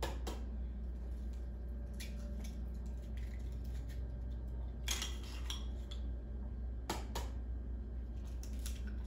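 Eggs being tapped against the rim of a plastic mixing bowl and cracked open: scattered sharp clicks and taps, busiest in a short cluster about five seconds in.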